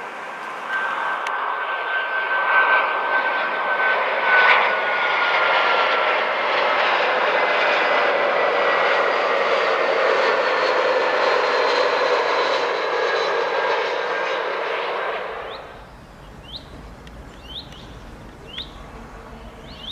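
Turbofan engines of an Airbus A321 on landing approach flying past: a loud rushing noise with whining tones that slowly fall in pitch. About fifteen seconds in it cuts off abruptly to a quieter background of low rumble with a few short bird chirps.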